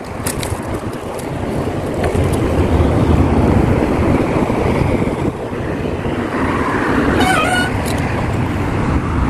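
Wind rumbling on the microphone of a phone carried on a moving bicycle, over the steady noise of car traffic on the road alongside. A brief wavering higher-pitched sound with a few clicks comes about seven seconds in.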